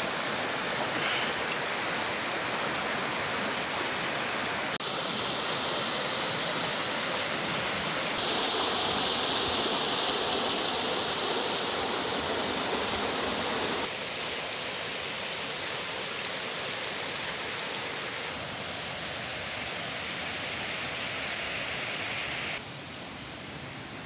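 Shallow creek rushing over rocks and small riffles, a steady noise of flowing water. It jumps abruptly in loudness several times, loudest in the middle and quietest near the end.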